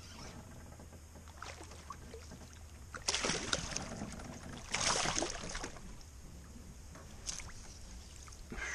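Water splashing beside a canoe in two loud splashy bursts about a second and a half apart, with a smaller splash a couple of seconds later.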